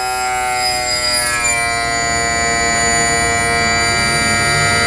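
Power trim and tilt motor of a Yamaha 90 hp two-stroke outboard running as it tilts the motor up: a loud, steady whine whose pitch dips slightly in the first second or so, then holds.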